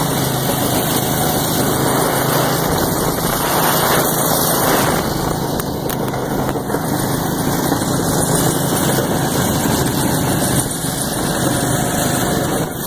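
Go-kart engine running steadily up close, a constant loud drone with no let-up.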